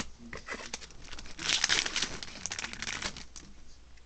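Foil Yu-Gi-Oh! Soul Fusion booster pack being crinkled and torn open by hand, with a loud crackling burst about a second and a half in and scattered smaller crinkles after it.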